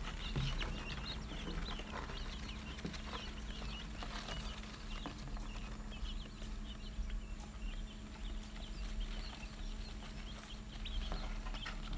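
A brood of newly hatched quail chicks peeping: many short, high cheeps overlapping one another without a break.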